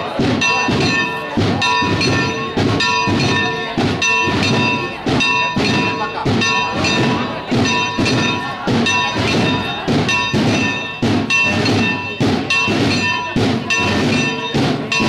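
Church bells pealing in rapid, even strokes, about two to three a second, the ringing of each stroke carrying on into the next: a festive peal as the image leaves the sanctuary. Crowd voices are heard underneath.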